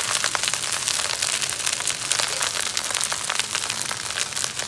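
Shrimp fried rice sizzling in a hot wok: a steady hiss with many small, quick crackles.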